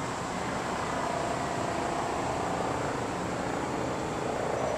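Steady drone of jet aircraft on the airport ramp: an even roar with a faint whine held over it.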